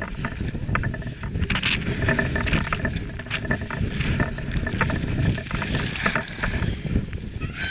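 Mountain bike descending over loose gravel and rocks: steady tyre rumble and wind on the microphone, with constant rattling and clicking of the bike as it hits stones. A brief high-pitched squeal near the end.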